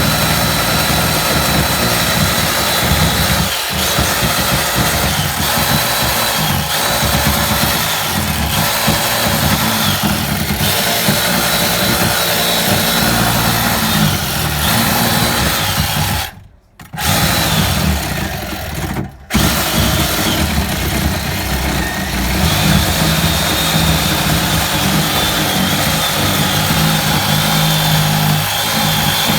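Handheld power tool cutting down the edge of a wooden gate to trim it where it sticks, running steadily with a high whine. It stops for under a second about two-thirds of the way through, runs again, then cuts out briefly once more before carrying on.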